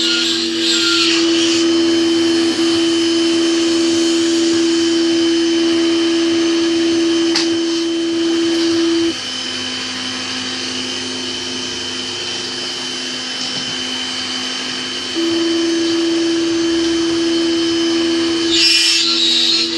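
Proxxon MF-70 CNC mill's spindle motor running steadily with a high hum while milling plexiglass. About nine seconds in the hum drops and the sound goes quieter for about six seconds, then comes back, with short bursts of cutting noise near the start and the end.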